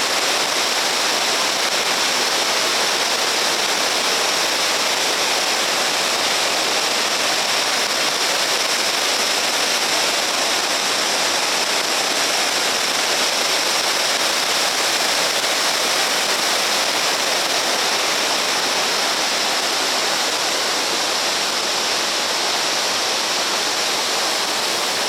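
Ryūzu Falls, a long cascading waterfall over rock, rushing steadily: an even, unbroken hiss of falling water.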